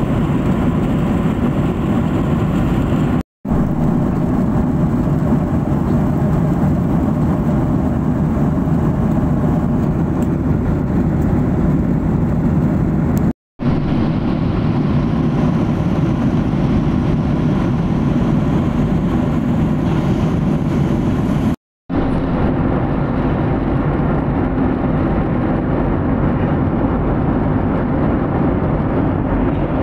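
Steady jet airliner cabin noise in cruise flight, a deep even rush of engines and airflow heard from inside the cabin. It cuts out for an instant three times where clips are joined.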